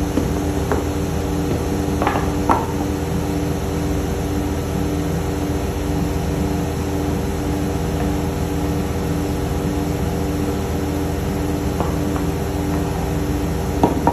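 Steady mechanical hum of running shop machinery, with a few light knocks, twice about two seconds in and several near the end.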